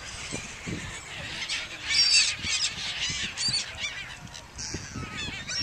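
A flock of gulls squawking, with harsh, overlapping calls that come in clusters, loudest about two seconds in and again near the end.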